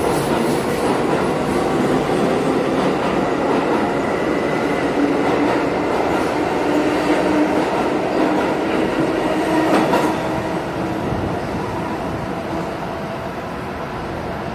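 R46 subway train pulling out of an underground station, its wheels and motors rumbling loudly past the platform with a faint whine that rises a little midway. The sound fades away from about ten seconds in as the train leaves down the tunnel.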